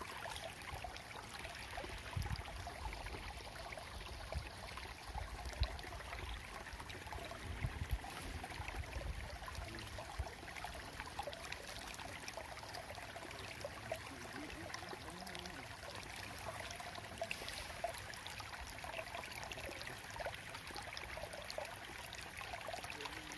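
Water flowing and trickling steadily in a small ditch, with a few low rumbles in the first ten seconds or so.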